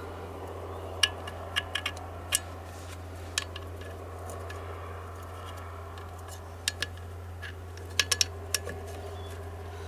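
Light clicks and taps of small plastic and metal parts being handled and pushed into place in a chainsaw's oil pump recess, in a few scattered clusters, over a steady low hum.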